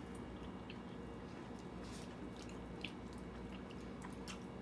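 Faint scattered clicks and soft taps of food and utensils being handled, over a steady low hum.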